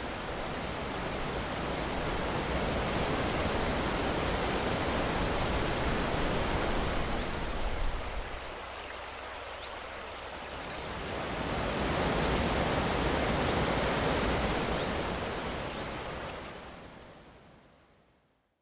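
Steady rush of water tumbling over a small stone weir into a woodland stream. It drops away for a couple of seconds about halfway, swells again, then fades out near the end.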